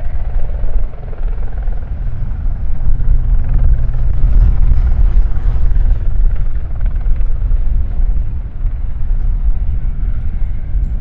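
Eurocopter EC120B Colibri single-turbine helicopter running: a loud, deep rotor and engine noise whose loudness rises and falls.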